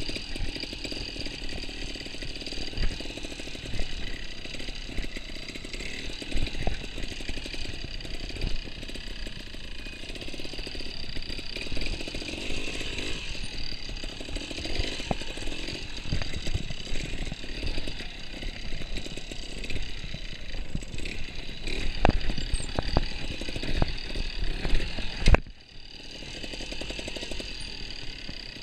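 Trials motorcycle engine running at low, varying revs while the bike is ridden slowly over rough ground, with scattered knocks as it strikes rocks and roots. About 25 seconds in a loud knock is followed by a brief drop in the engine sound before it picks up again.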